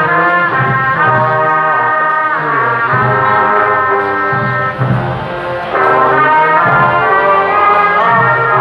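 Brass band music: several brass instruments playing a tune in held notes, briefly softer about five seconds in.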